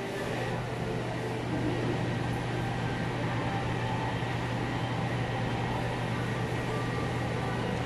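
Indoor shopping-mall ambience: a steady low mechanical hum over an even wash of air noise.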